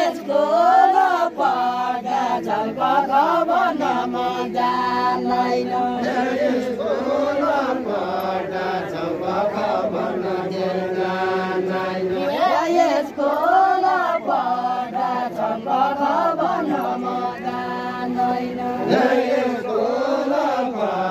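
Unaccompanied group singing of a Deuda folk song: several voices sing a repeated, chant-like melody in long sung lines.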